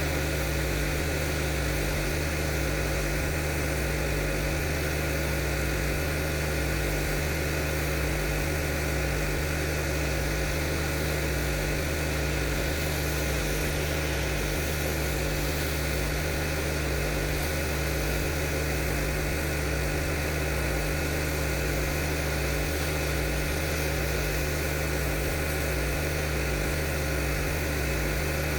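Pressure washer's engine running steadily, with a constant hiss of high-pressure water spray.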